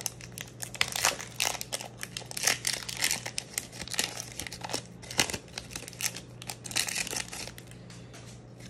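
Pokémon booster pack's foil wrapper being crinkled and torn open by hand, a dense run of irregular crackles that thins out near the end.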